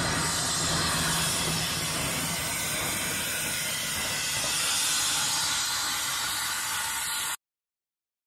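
Steam hissing loudly and steadily from the 1897 Avonside-built GWR tank locomotive No. 1340 'Trojan' as it moves past. The hiss cuts off suddenly near the end.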